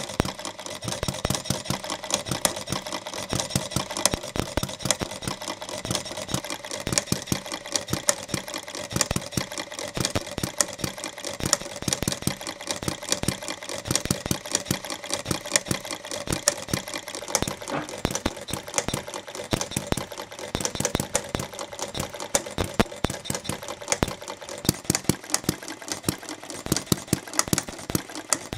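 Scale model Little York hit-and-miss gas engine, built from the Schaefer casting kit, running: a fast, steady clatter of small mechanical clicks, with louder knocks at irregular intervals.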